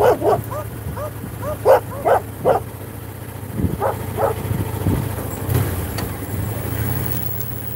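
A dog barking in short bursts, about seven barks in three quick groups during the first four and a half seconds, over the steady low drone of a motorcycle being ridden.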